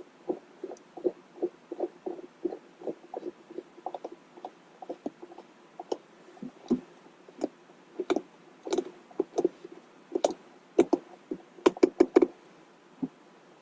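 Aftermarket Moddiction Anvil 2 shift knob being turned by hand onto the threaded shift lever of a Honda S2000: a run of soft knocks and clicks, about two or three a second, with a few sharper, louder clicks near the end.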